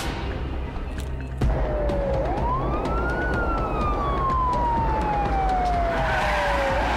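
Music, then about one and a half seconds in a police car siren cuts in, wailing: one quick rise and a long slow falling sweep, starting to rise again near the end. Road noise of cars driving runs under it.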